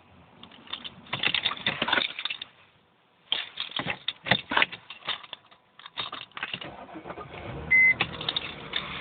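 Bursts of rapid clicking and rattling around a 1998 Mercedes CLK 320, then a short high beep, after which a steady low engine hum sets in near the end, consistent with its V6 starting and idling.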